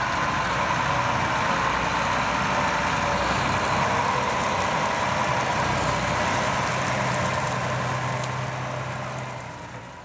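A large farm tractor's diesel engine runs steadily, with a constant whine above the engine hum. The sound fades out near the end.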